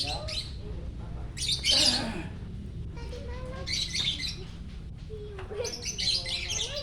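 Lovebird chattering in repeated bursts of shrill, rapid chirps, the loudest burst about one and a half to two seconds in.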